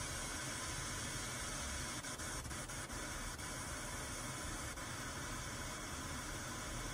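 Pink noise test signal playing steadily through the car's front Kicker KS component speakers, powered directly by the Kenwood head unit: an even, unchanging hiss. A few faint clicks come about two to three seconds in.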